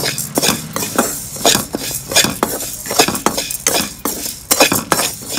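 Slotted spatula scraping around a metal kadai, stirring dry-roasted chana dal and urad dal so the hard lentils rattle against the pan, in repeated strokes about three a second.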